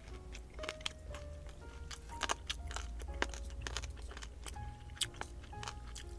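Quiet background music with a simple melody of held notes, over chewing and many short, sharp clicks of chopsticks against bowls as crispy Thai fried pork belly (moo krob) is eaten.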